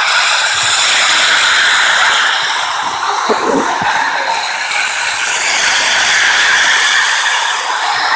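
Lionel O-gauge model train running at speed around the track: a loud, steady whirring hiss of its motor and wheels on the rails, dipping slightly about three seconds in before coming back up.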